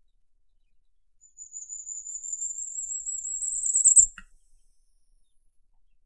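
Firecrest (Regulus ignicapillus) singing: one song of very high, thin notes in a quick run, about three seconds long. It grows louder toward the end and stops abruptly.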